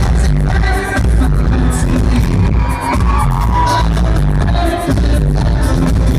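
Live pop-rock band playing loud, with drums, keyboards and a lead vocal over a heavy, booming bass, heard from within an arena crowd.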